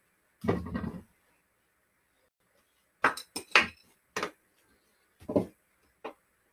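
Hockey stick knocking against a plastic-capped foam obstacle and a stickhandling ball on carpet: a short scuffle, then after a pause about six sharp clacks.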